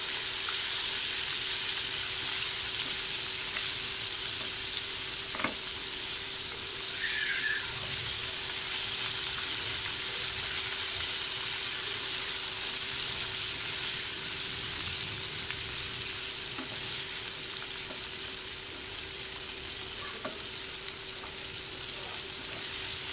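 Flour-coated tofu cubes deep-frying in hot oil: a steady sizzle as a wooden spatula stirs them, with one sharp knock about five seconds in.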